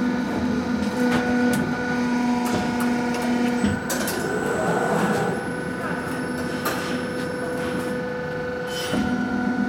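Glazed tile roll forming machine running with a steady motor hum. The hum stops about four seconds in, and a few sharp metallic knocks follow while it is off. The hum starts again near the end.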